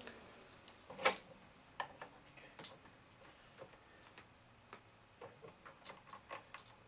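Faint, scattered clicks and taps of small plastic parts being handled, the sharpest about a second in, as an RJ45 plug on a Cat 5 cable is pushed into a rotator controller box.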